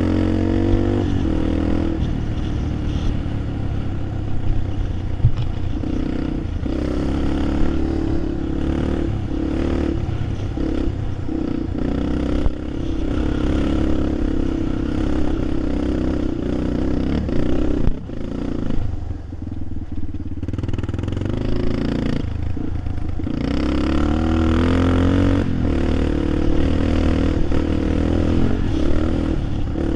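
A vehicle engine running under varying throttle, with rattling and clatter. It eases off and drops away about two-thirds of the way through, then picks up again.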